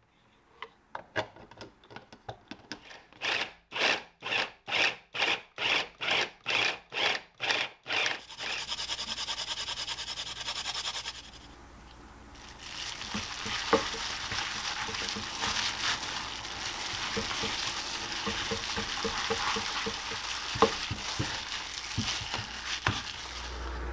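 A small food chopper mincing chicken thigh in short pulses, about two a second, then running steadily for a few seconds. After a short lull, a plastic-gloved hand kneads the minced chicken and vegetable mixture in a wooden bowl: wet squishing and rustling with occasional clicks.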